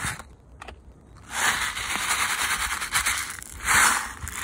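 Plastic airsoft BBs rattling as they are poured out of a plastic water bottle into a palm: a dense clatter that starts about a second in and is loudest near the end.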